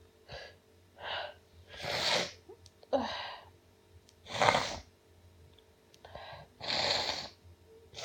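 A woman sneezing again and again in a fit: about eight short bursts, the loudest near two, four and a half and seven seconds in.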